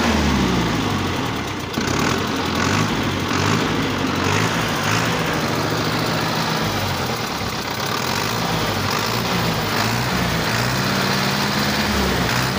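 Fiat 640 tractor's four-cylinder diesel engine running, its speed rising and falling several times as it is revved. The engine has been freshly rebuilt.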